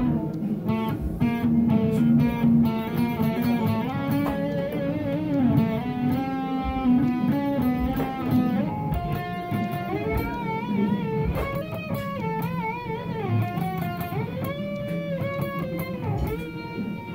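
Electric Telecaster guitar played through an amp with a heavy tone, in a metal style. A low note rings through the first half, then lead lines follow with held notes shaken by wide vibrato.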